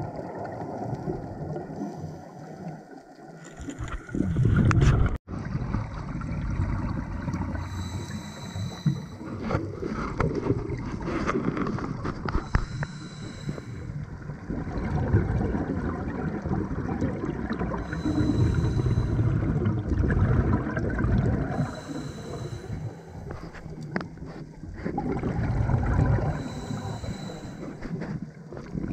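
A scuba diver's regulator breathing underwater. There is a hissing inhale every four to five seconds, each followed by a low burst of exhaled bubbles.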